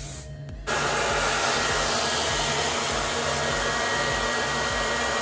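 Handheld hair dryer switched on about a second in, then blowing steadily at full power with a faint high whine over the rush of air.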